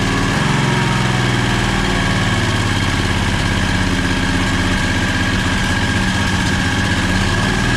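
670cc Predator V-twin engine running steadily during its first break-in run, throttle held by hand. It picks up a little speed about half a second in, then holds an even pace.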